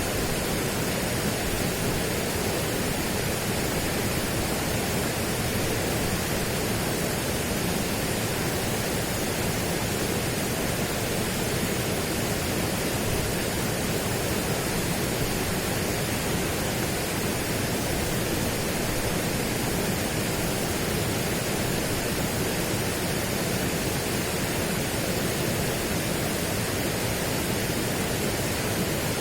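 Steady, unchanging rushing noise spread evenly from low to high pitch, with no distinct events.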